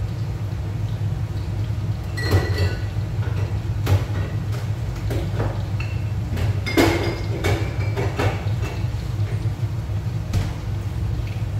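Kitchen clatter: scattered knocks and clinks of cookware and utensils being handled, the loudest a little past the middle, over a steady low hum.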